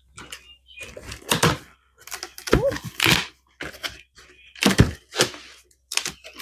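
Cardboard box packaging being cut and pulled open by hand: an irregular string of scrapes, rustles and knocks.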